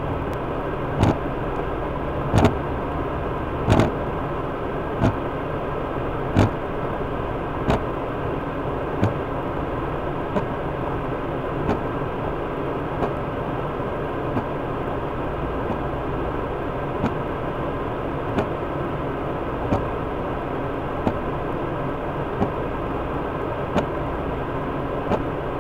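A vehicle engine idles steadily, heard from inside the cab. A sharp click sounds about every second and a third, loudest over the first several seconds and fainter after.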